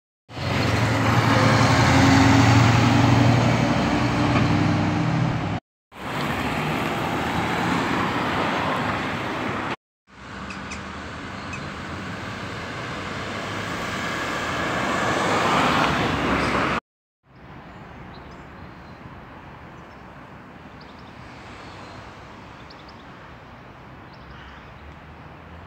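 Street traffic: cars driving past close by, a low engine hum loudest in the first seconds, then a vehicle approaching and growing louder. The sound cuts off abruptly three times, and the last stretch is quieter steady background traffic.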